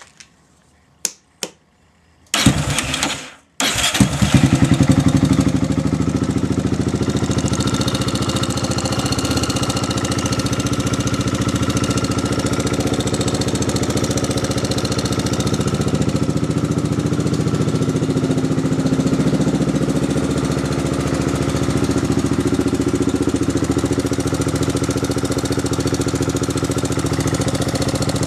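A few light clicks, then a small air-cooled motorcycle engine is started: it catches about two seconds in, falters a second later, then starts again and runs steadily at idle. The engine is running with its valves not yet adjusted.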